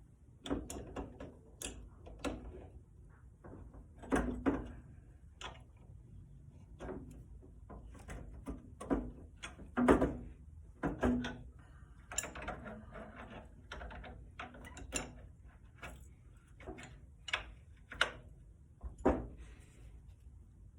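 Irregular clicks, clanks and knocks of metal fittings and hand tools being handled and set down, some with a brief low ring.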